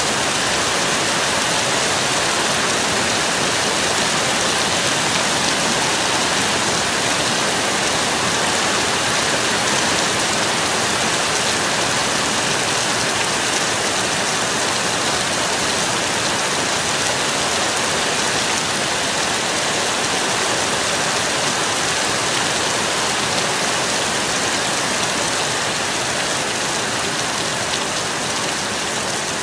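Heavy thunderstorm rain falling steadily, a dense even hiss with no thunder, getting slightly softer near the end.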